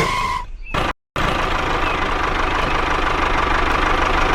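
Small engine running steadily at idle with a faint steady whine over the rumble. It cuts out for a moment about a second in, then resumes evenly.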